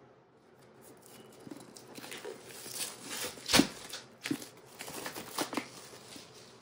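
Paper and card rustling as an album's contents are handled and opened. A series of irregular taps and clicks runs through it, and the loudest is a sharp knock about three and a half seconds in.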